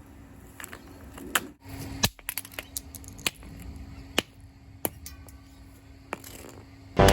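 Several sharp, separate knocks and clatters of a vintage Hoover table fan being broken apart, over a steady low hum. Music starts right at the end.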